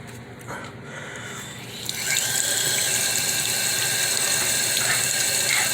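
Tap water running into a sink, starting suddenly about two seconds in and then running steadily.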